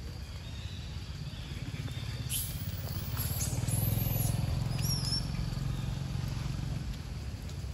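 Low steady rumble that swells around the middle, with several short high squeals from a running macaque troop between about two and five seconds in.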